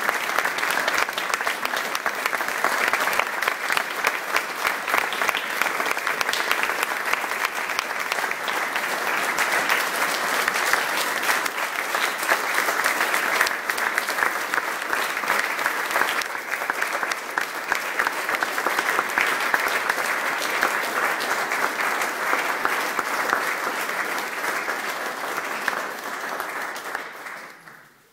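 Audience applauding: a dense, steady clapping from many hands that dies away just before the end.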